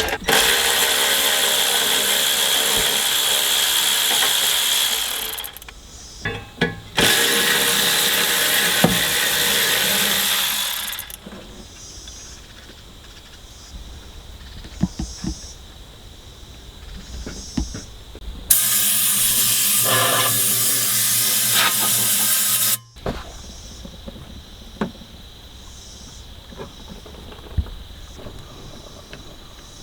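Three long bursts of a hissing workshop tool, each a few seconds, with small clicks and knocks of handling between them.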